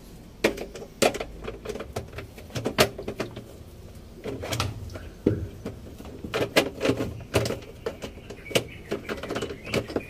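Irregular plastic clicks and knocks inside an empty LG top-load washing machine drum as its lint filter is handled and fitted onto the tub wall.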